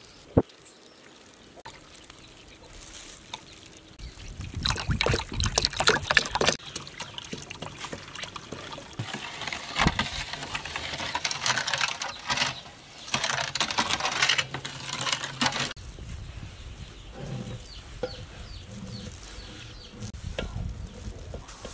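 Milk poured into a steel bowl of melted butter and sugar, then a steel ladle stirring the liquid batter, splashing and clinking against the bowl in several bursts. It goes quieter in the last few seconds.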